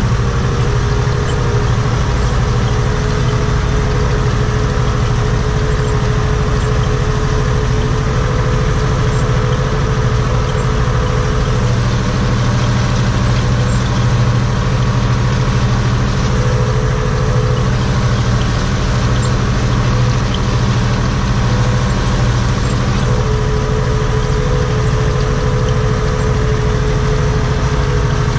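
Steyr 964 Turbo tractor's diesel engine running steadily, heard from inside the cab while the tractor pulls a rotary hay rake through cut grass.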